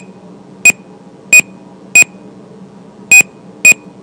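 Short, sharp electronic beeps, six of them at uneven spacing, each a brief high tone, heard over a steady low hum.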